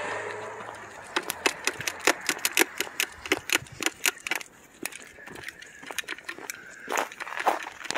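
Footsteps crunching on a snowy, icy sidewalk: a quick, irregular run of sharp crunches and clicks, several a second. Before them a low hum fades out in the first half-second.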